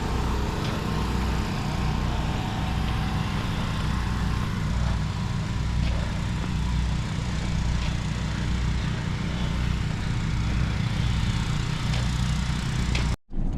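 An engine running steadily with a low rumble and constant noise over it, cutting off abruptly near the end.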